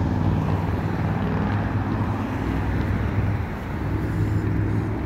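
New Flyer XD60 articulated city bus driving slowly past close by, its engine giving a steady low drone mixed with road noise.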